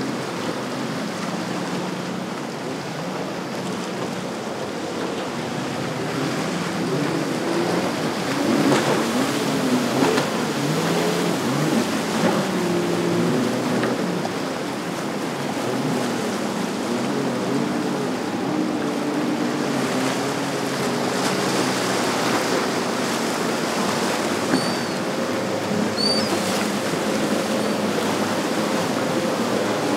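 Twin Yamaha 250 outboard motors on a Robalo R265 walkaround running through rough inlet waves, their pitch rising and falling as the throttle and load change, over a steady wash of surf and churning wake.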